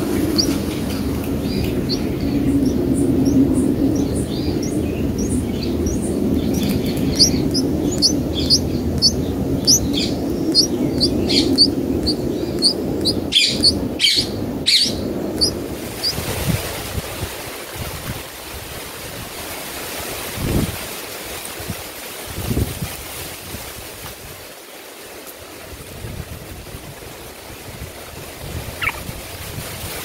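Red-whiskered bulbul nestlings begging with a rapid run of short, high cheeps while being fed, over a steady low rumble. About halfway through the cheeping stops; after that come only a few low thumps and a single chirp near the end.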